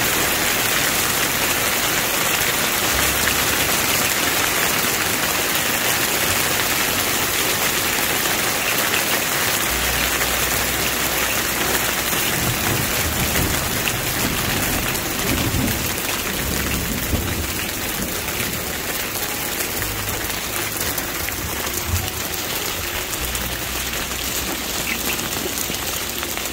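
Hail and rain falling hard on a garden, a steady dense hiss of impacts that eases a little over the second half.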